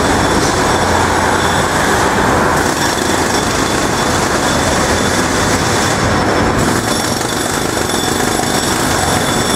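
Loud, steady din of a construction site and city street, with machinery rattling throughout.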